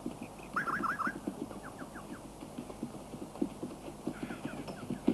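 Horses walking on a woodland floor: soft, irregular hoof steps. A bird chirps in short quick runs about half a second in, again near two seconds and near four seconds.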